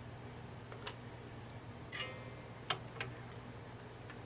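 A few light clicks and taps from small soldering tools and parts being handled on the workbench, the sharpest click a little under three seconds in, over a steady low hum.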